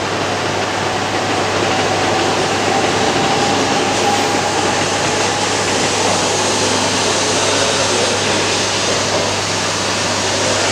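Steady hiss and low hum of a Shinkansen train standing at the platform, its cooling blowers and air-conditioning running.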